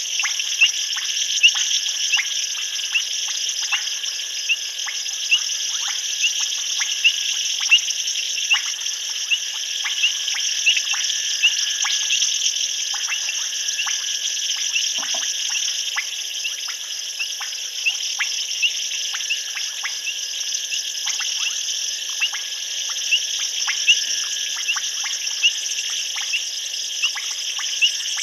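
Nighttime chorus of insects and frogs: a steady high trilling hum with many short sharp chirping calls, a couple each second, running through it.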